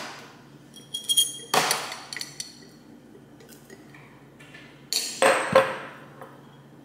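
A glass drinking cup and the glass straw standing in it clink and knock as the cup is handled and set down on a counter. There are several separate clinks with a short ring, loudest about a second in and again about five and a half seconds in.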